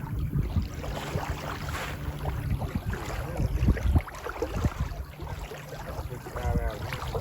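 Wind buffeting the action camera's microphone, a low rumble broken by short knocks and handling bumps, over a faint steady low hum.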